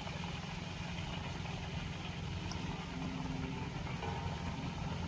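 An engine idling steadily: a low, even hum with a fast pulse.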